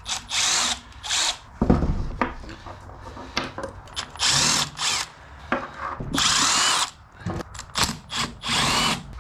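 Handheld power drill run in short bursts of about half a second to a second, several times over, with a faint whine, spinning bolts out of a differential housing.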